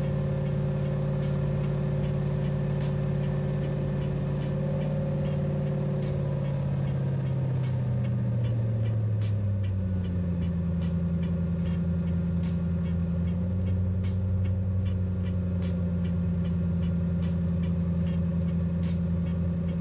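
Car engine running under a heavy electrical load from a carbon-pile load tester. About a third of the way in its pitch slides down as the draw pulls it back to idle speed, then it holds steady, with a faint regular ticking over it.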